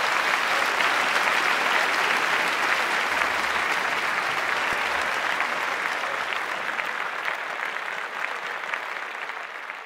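Audience applauding a song that has just ended, a dense steady clapping that slowly fades away over the last few seconds.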